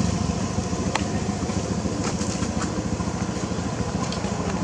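A motor engine running steadily with a low, pulsing rumble, with a sharp click about a second in.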